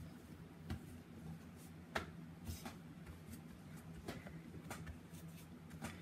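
Faint pats, taps and rubbing of hands pressing crescent roll dough flat on a floured wooden counter, with a sharper tap about two seconds in, over a low steady hum.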